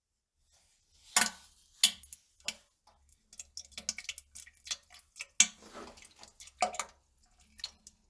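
Wet bowel-movement sounds: an irregular string of squelching splats and plops, with drips in between. The loudest splats come a little after one second, at about five and a half seconds and near seven seconds in.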